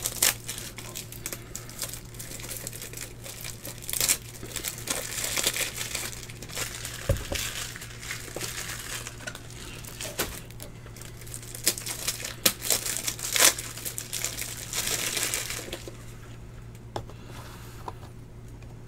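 Plastic wrapping crinkling and tearing as packs are unwrapped by hand, in irregular bursts with sharp crackles, quieter in the last few seconds. A steady low hum runs underneath.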